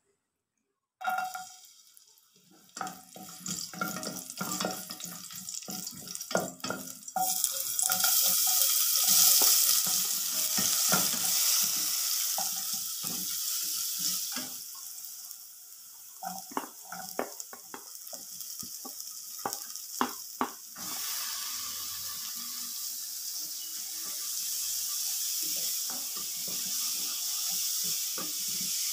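Sliced onions, and later shredded cabbage and carrot, sizzling in hot oil in a steel pot while a wooden spatula stirs and knocks against the pan. Scattered knocks and crackles give way after several seconds to a loud, steady sizzle, broken by more spatula knocks before the hiss settles again.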